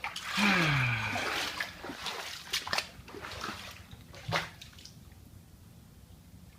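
Floodwater sloshing and splashing indoors as someone wades through it, in a loud rush near the start and then a few sharper splashes. A brief low falling voice-like sound comes near the start.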